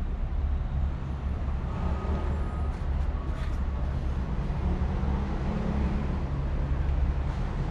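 Royal Enfield Himalayan's single-cylinder engine idling steadily, run right after an oil change so the fresh oil circulates and the level in the sight window settles.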